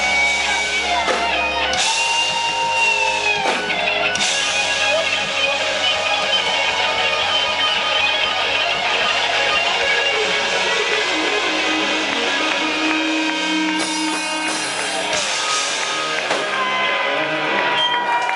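Rock band playing live in an instrumental passage, an electric guitar lead holding and bending notes over the band. The bass drops out about fifteen seconds in, leaving the guitars ringing.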